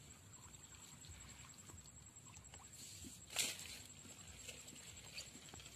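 Small knocks and rustles from a man handling a bamboo-framed fishing lift net and its mesh in shallow water, with one sharp knock about three and a half seconds in. A faint steady high-pitched tone runs underneath.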